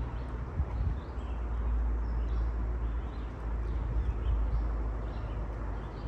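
Low rumble of wind buffeting the phone microphone, with small birds chirping faintly and now and then in the woods.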